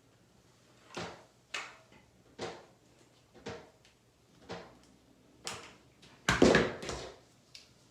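A series of short knocks and clatters, roughly one a second, with a louder cluster of several knocks about six and a half seconds in.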